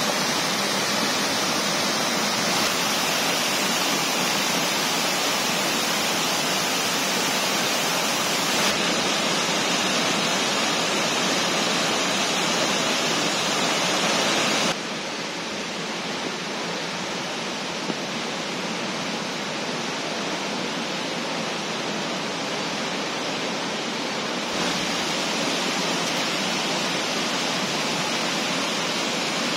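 Steady rush of falling water from a waterfall and stream cascades. It shifts abruptly in loudness a few times, dropping noticeably about halfway through and rising a little near the end.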